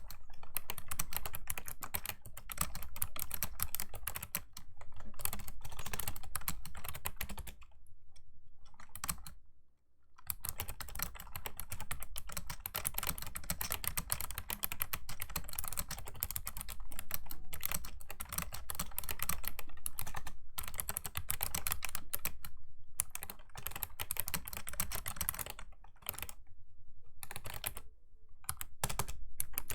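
Rapid typing on a Razer Ornata Chroma V2 clicky mecha-membrane keyboard: dense runs of sharp key clicks broken by brief pauses, the longest about eight seconds in.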